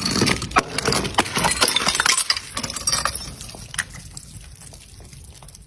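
Glass bottle full of water beads clinking down concrete steps and shattering, followed by a quick scatter of many small impacts that thin out and die away over a few seconds.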